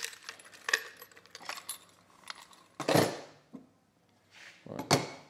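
Nozzles and caps of a Picote mini liner-inversion cannon being handled and fitted: small metal and plastic parts clicking and clinking, with a louder knock about three seconds in and another near the end.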